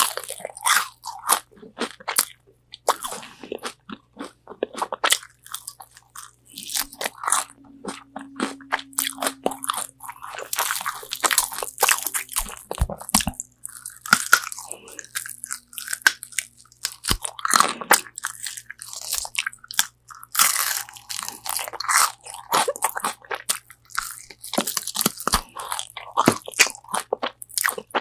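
Close-up eating of crispy spicy Korean fried chicken wings: repeated crunchy bites and chewing through the fried batter, in dense irregular crackles throughout.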